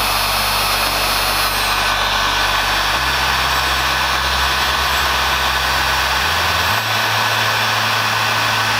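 Hamilton HPC002 heat gun running, blowing hot air with a loud, steady rush of fan and airflow. It is heating pre-glued edge banding to activate the adhesive on its back.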